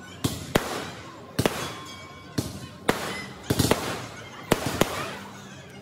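Fireworks exploding: about a dozen sharp bangs at irregular intervals, several coming in quick clusters of two or three, with crackling between them.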